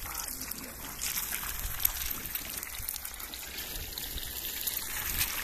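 Eggs frying in a pan over a portable gas burner, sizzling: a steady hiss with many small crackles and pops.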